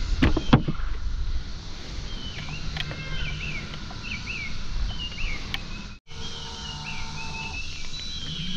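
A few sharp knocks of a plastic cooler lid being shut, then a songbird singing repeated short chirping phrases over a low steady hum.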